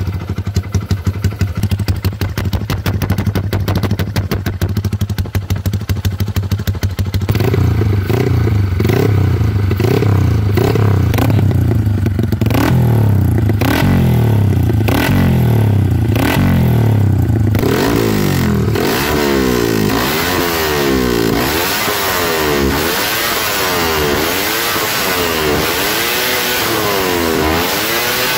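Yamaha 135LC's single-cylinder four-stroke engine running through a Red Leo 'siput' open exhaust. It idles with a fast, even pulse, is blipped at low revs in swells from about seven seconds in, then is revved higher in repeated rises and falls about every two seconds from about eighteen seconds in.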